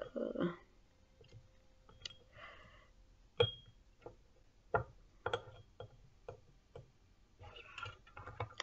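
Scattered light clicks and taps of pens being picked up and handled at a desk, with two sharper knocks about three and a half and five seconds in.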